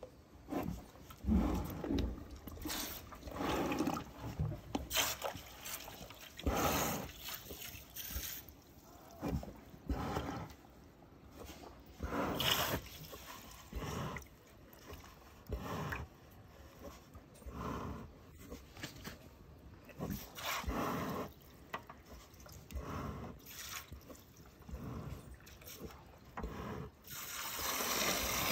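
A cow drinking from a plastic bucket, slurping and gulping in irregular bursts every second or two, while water runs into the bucket from a hose.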